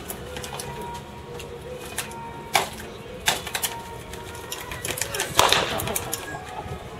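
Pitched baseballs smacking into catchers' leather mitts, a few sharp pops over several seconds, the loudest and fullest about five and a half seconds in.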